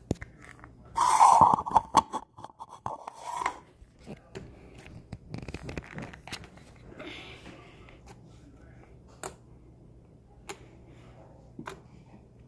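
White slime being squeezed and poked by hand, giving sticky squelching and crackling with many short popping clicks, loudest for a couple of seconds about a second in, then sparser pops.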